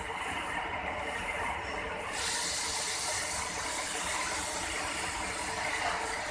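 Lathe running with a combination spade drill cutting into the spinning workpiece, a steady mechanical whirr. A bright hiss joins about two seconds in and holds.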